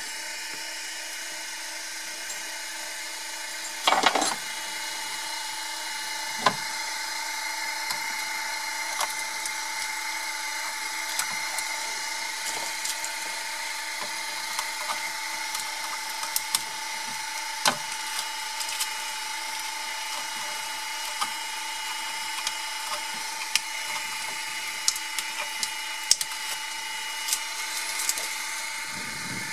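Ultimaker 2 3D printer's fans running with a steady whine while the printer cools down. Over it come scattered sharp clicks and cracks as the finished print is worked loose from the glass bed, with a louder scrape about four seconds in.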